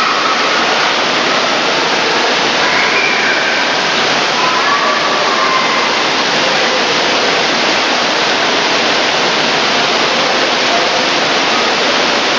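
Water pouring steadily from an overhead splash-pad fountain close by: a loud, even rushing, with faint voices in the background.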